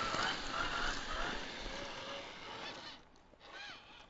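1/10-scale RC rock crawler's electric motor and geared drivetrain whining, the pitch rising and falling with the throttle as it climbs over rocks. About three seconds in the sound drops away, with one short rising whine in the lull.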